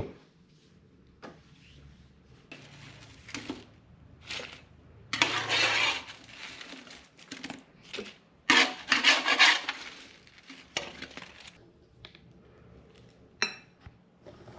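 A slotted metal spatula scraping and lifting roasted potato wedges off a baking tray onto a ceramic plate, with clinks and clatters of utensil and dish. The two longest scraping spells come about five and eight and a half seconds in.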